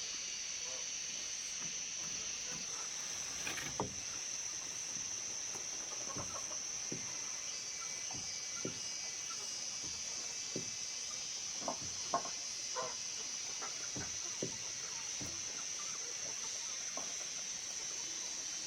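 Steady high-pitched insect drone, with scattered short chicken clucks over it.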